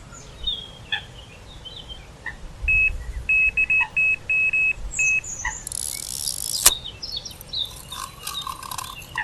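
Electronic carp bite alarm beeping about ten times at one pitch, irregular and quickening, as a fish takes the bait and pulls line. A short rushing noise and a sharp click follow a couple of seconds later, with birds chirping in the background.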